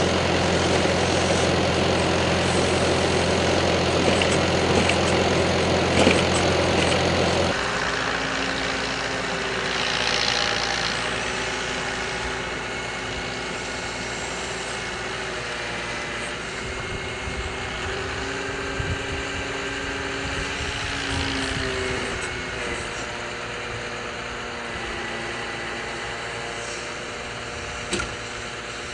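Farm tractor engine running as it tows a manure spreader across a field: a loud steady drone, which about seven seconds in drops to a quieter engine note that rises and falls in pitch.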